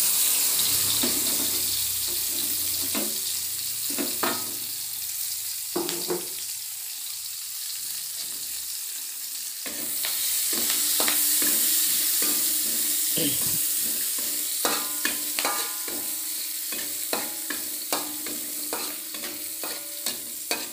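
Sliced onion sizzling in hot oil in a wok, with a metal spatula scraping and tapping against the pan as it is stirred. The sizzle swells again about ten seconds in.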